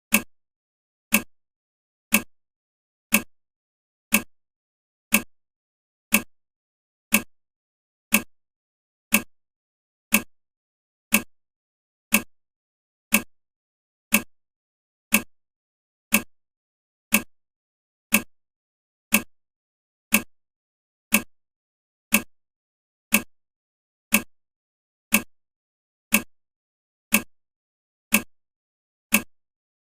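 Countdown timer's clock-tick sound effect: one sharp tick every second, evenly spaced, each dying away quickly.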